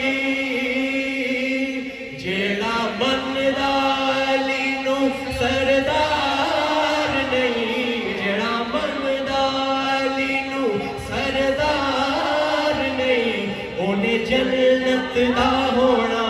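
Male voices chanting a Punjabi manqabat, a devotional praise poem for Ali, through microphones: long held notes sliding up and down, with a short dip about two seconds in.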